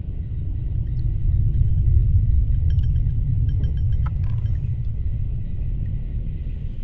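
Deep, heavy rumble that swells to its loudest about two seconds in and slowly eases off, with a few faint light clinks and ticks over it near the middle.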